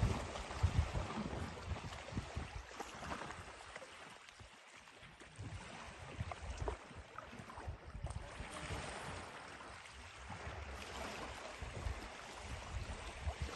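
Wind buffeting the microphone over lapping river water, with the gusts heaviest in the first second or two and then easing.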